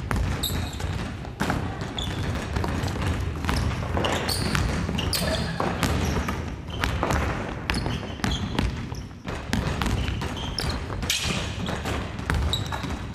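Basketballs bouncing on a wooden gym floor in repeated dribbles, each a sharp thud, with short high squeaks scattered between them.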